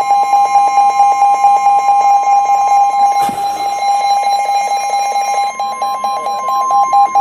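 NOAA Weather Radio warning alarm tone, a steady tone of about 1050 Hz, with an electronic alarm beeping rapidly over it, announcing a severe thunderstorm warning. A short crackle comes about three seconds in. The steady tone cuts off near the end while the beeping goes on.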